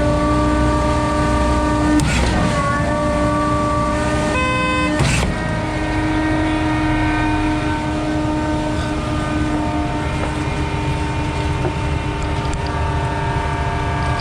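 Concrete pump truck running with a steady mechanical whine, with sharp knocks of the valve shifting about two and five seconds in. A short horn toot sounds just before the second knock. The shift valve has a catch on its return stroke that the operator can't yet explain.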